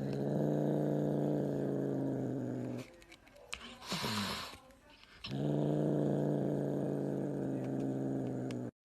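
A pet animal growling: two long, low, steady growls of about three seconds each, with a short hiss between them.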